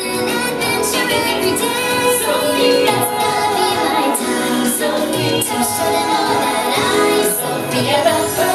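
A song with a female voice singing over a full instrumental backing.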